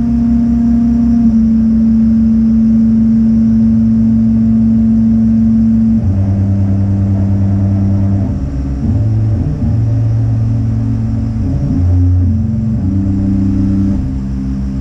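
Laser cutter's gantry stepper motors whining as the head traces a dry run with the laser off. The note holds for the first six seconds, then changes several times as the head changes speed and direction, over a steady low machine hum.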